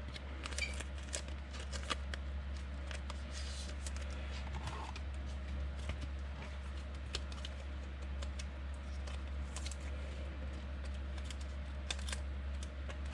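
Faint, scattered clicks and light rustles of trading cards and pack wrappers being handled and turned over, over a steady low electrical hum.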